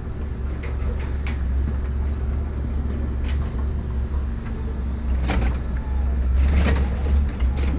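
A steady low engine rumble, as of an idling vehicle, with a scattered series of sharp knocks and clanks that grow busier after about five seconds.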